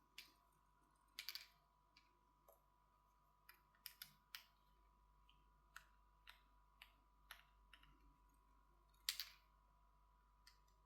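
Faint, scattered small clicks and taps of a precision screwdriver and tiny screws against a smartphone's frame as the screws are taken out. A quick cluster comes just after a second in, and the loudest tap comes about nine seconds in.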